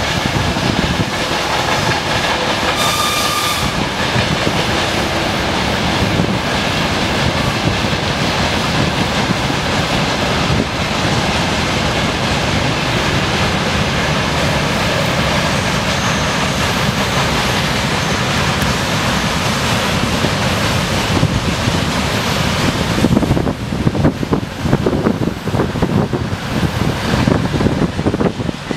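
A long freight train of hopper and tank wagons rolling past behind a VL80S electric locomotive: a steady rumble and clatter of steel wheels on the rails.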